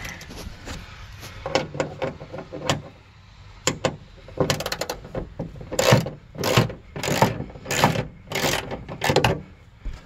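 Stanley ratchet with a 10 mm socket clicking in short runs, one run per backswing, coming regularly about every two-thirds of a second in the second half as it turns out the bolts holding the trunk latch.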